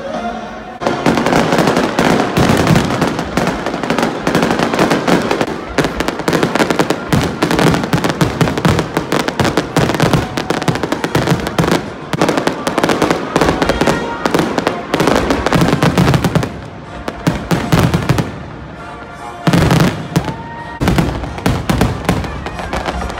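Fireworks display: a dense, continuous barrage of shell bursts and bangs starting about a second in, easing off for a few seconds about two-thirds of the way through, then picking up again.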